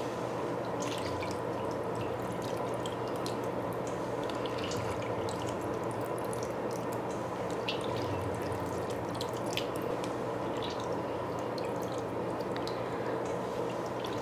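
Wet, swollen Orbeez water beads dripping and pattering back into a metal bowl of water as gloved hands scoop them up and let them fall, with many small scattered drips and clicks over a steady hum.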